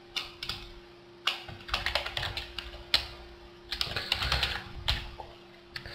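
Computer keyboard being typed on: irregular bursts of key clicks with short pauses between them, over a faint steady hum.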